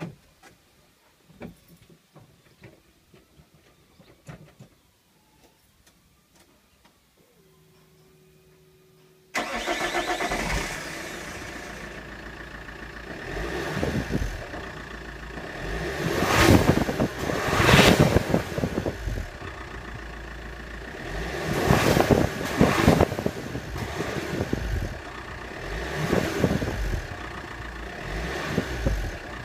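CDTI diesel car engine heard from its exhaust with a fake turbo whistle fitted in the tailpipe: after a few quiet seconds with faint clicks it starts suddenly, then is revved in several blips. The whistle makes little sound over the diesel.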